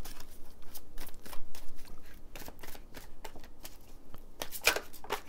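A deck of tarot cards being shuffled by hand: an irregular run of quick card clicks and flicks as the cards slide and tap against each other.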